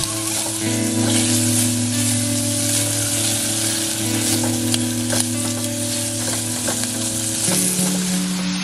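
Diced bacon sizzling as it fries in a stainless steel pot, with a spatula stirring and scraping the pieces across the pot's bottom.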